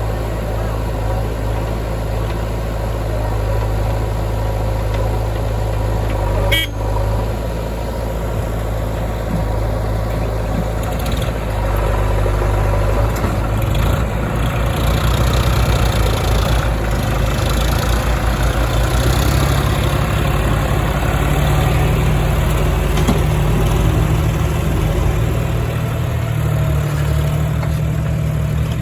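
Diesel engines of a backhoe loader and a tractor running, with a single sharp clank about six and a half seconds in; from about twelve seconds the engine note changes and gets a little louder as it works harder.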